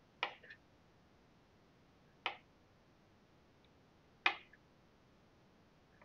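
Kitchen knife slicing through strawberries and knocking on the cutting board, three sharp taps about two seconds apart, one per slice.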